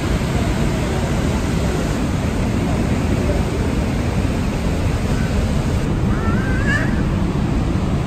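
Niagara's Horseshoe Falls heard from right beside the plunge: a loud, steady rush of falling water, heaviest in the low end.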